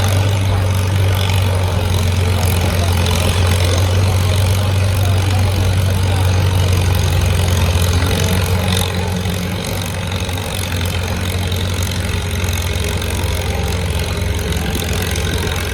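Farm tractor engine running steadily at a tractor pull, a loud low drone that eases off a little about nine seconds in.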